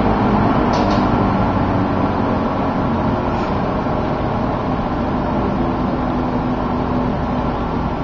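Old McGraw Edison Eskimo two-speed box fan running, just switched to its low speed: a steady rush of air over a motor hum that gradually gets quieter as the blade settles to the slower speed.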